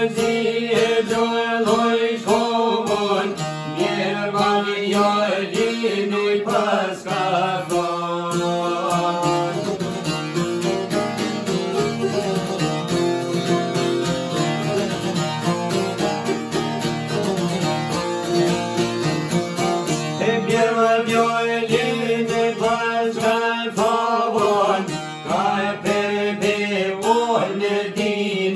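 Albanian folk music played live on a long-necked sharki and a small plucked lute, quick plucked notes running throughout. A man's voice sings over it in places, mostly in the last third.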